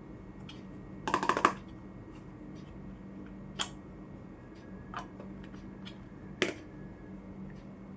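Miniature toy kitchen pieces being handled and tapped: a quick rattle of clicks about a second in, then a few single sharp taps spaced a second or so apart, with fainter ticks between, over a low steady hum.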